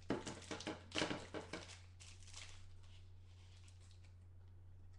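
Trading cards and a hard plastic graded-card slab being handled: a quick run of clicks and rustles in the first two seconds or so, then only a low steady hum.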